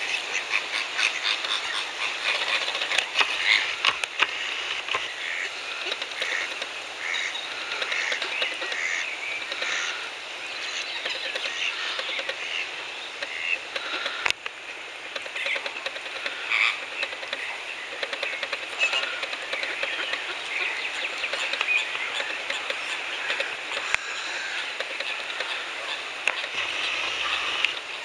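A flock of flamingos calling, a continuous chatter of many short overlapping calls.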